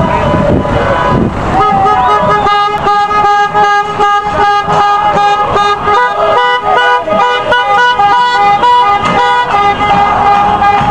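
Several car horns honking at once in short and long blasts of different pitches, overlapping, starting about a second and a half in, over passing traffic.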